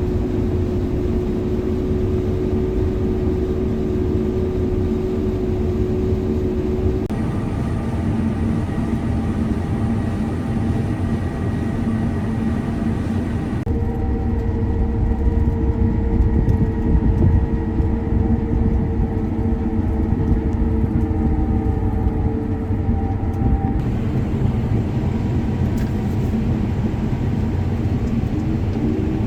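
Heavy harvest machinery running: a steady, loud engine drone with low rumble and a few held whining tones. The sound changes abruptly three times, as if cutting between different machines.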